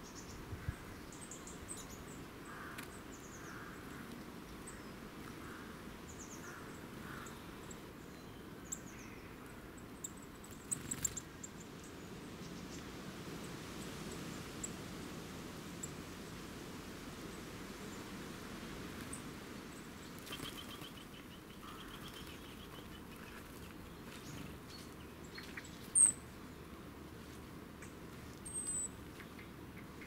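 Small garden birds calling: scattered thin, high chirps and tweets, a short rattling trill about two-thirds of the way through, and one sharp, loud high call near the end, over a steady low background hiss.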